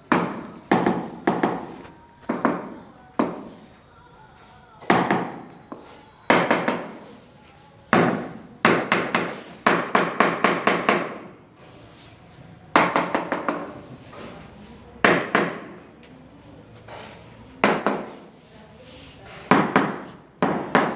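Hammer blows on a building site: single strikes and quick runs of several strikes, each sharp and dying away quickly.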